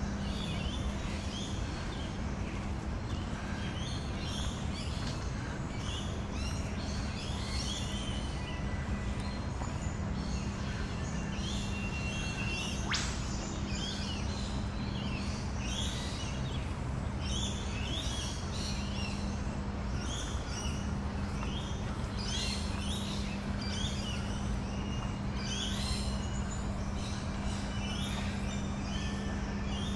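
Many birds chirping continuously in short repeated calls over a steady low hum of city background noise, with one sharp click about halfway through.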